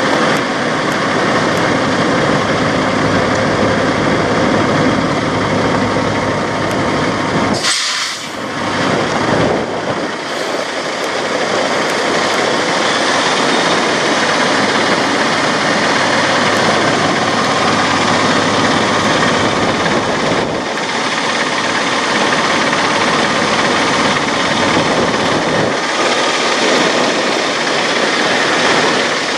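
Diesel semi-truck engines idling steadily, a continuous heavy engine drone. About eight seconds in there is a brief break with a short hiss, then the idle noise carries on.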